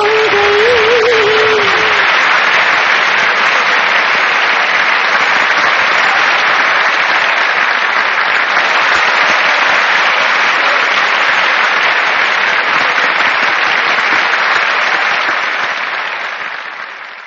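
A song's melody ends about two seconds in, and then a crowd claps in steady, dense applause that fades out near the end.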